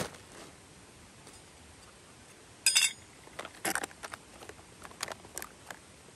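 Camp cookware being handled: one louder clatter about two and a half seconds in, then a run of light clinks and taps.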